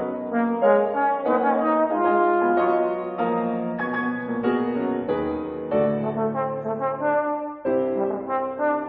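Trombone playing a melody of held notes, changing about once or twice a second, with piano accompaniment. There is a short break in the line about three-quarters of the way through.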